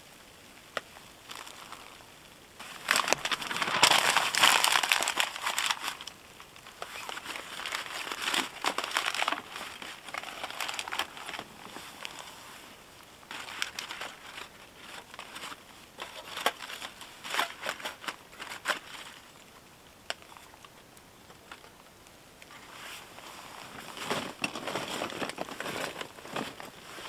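Newspaper and fire-lighter packaging crumpling and crinkling in irregular bursts as a fire is laid in a portable firebox, loudest about three to six seconds in.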